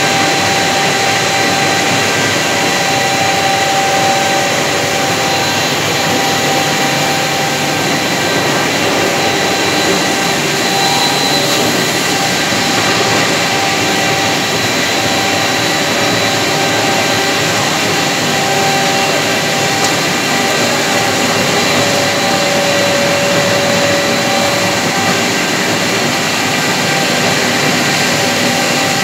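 ZV 62 Ultra twin-screw extruder running steadily: a loud, even machine noise with several steady whining tones held throughout.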